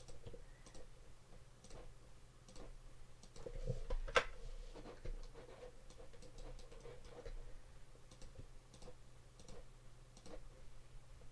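Scattered clicks of a computer mouse and keyboard, the loudest about four seconds in, over a faint steady hum.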